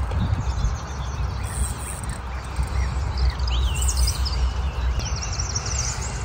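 Small birds chirping, with a fast repeated trill from about the fifth second, over a steady rumble of wind on the microphone.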